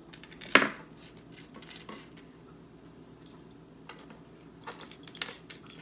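Metal costume earrings clicking and clinking as they are handled and set down on a tabletop, a few separate clinks, the sharpest about half a second in.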